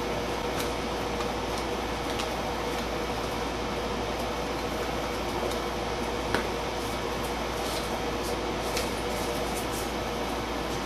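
Steady room hum with a faint tone, broken by a few faint light brushing sounds and one small click about six seconds in.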